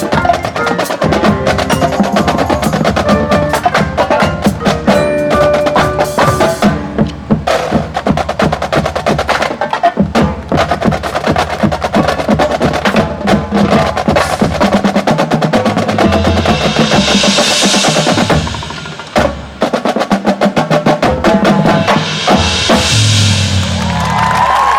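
Marching band percussion playing loud and fast: rapid drum strokes and rolls with mallet keyboards and wood block, and two big swelling crashes, one around two-thirds of the way through and one near the end.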